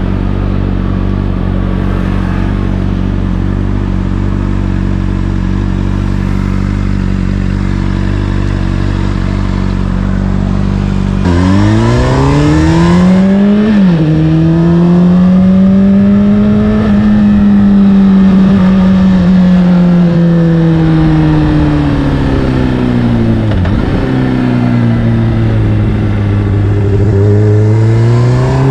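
Honda CBR600RR's inline-four engine through an Akrapovic exhaust, holding a steady engine speed for about eleven seconds. It then gets louder and revs up sharply, drops in pitch once on an upshift, rises and slowly eases off, dips again a little later, and revs up once more near the end.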